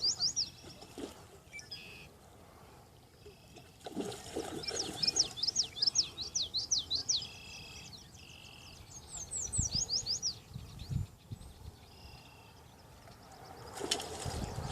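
A bird singing in rapid runs of high, sharply falling chirps, two long runs with quieter gaps between them. A sharp knock sounds near the end.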